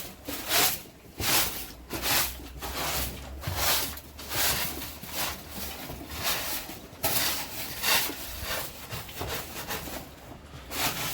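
Rhythmic rasping strokes, about three every two seconds, like a hand tool or brush worked back and forth on a rough surface, with a short lull near the end.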